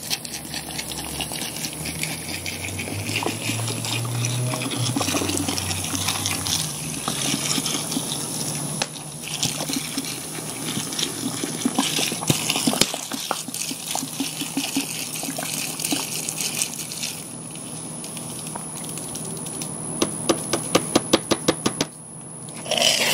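Strawberry soda pouring from a 2-liter plastic bottle into a 5-gallon bucket of dry corn kernels, the stream splashing steadily onto the grain. Near the end the almost-empty bottle glugs in a quick run of pulses, several a second.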